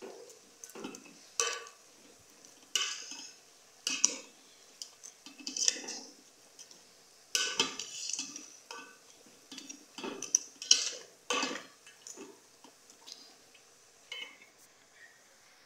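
A spoon scraping and clinking against a metal cooking pot while stirring chopped vegetables, in irregular strokes about once a second.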